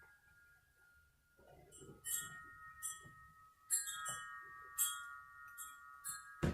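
Bell-like chime tones, struck about five times and ringing on between strikes at several fixed pitches.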